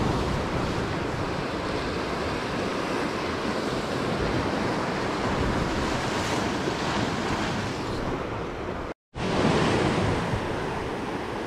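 Ocean surf washing over jetty rocks, a steady rushing noise, with wind buffeting the microphone. The sound cuts out completely for a moment about nine seconds in.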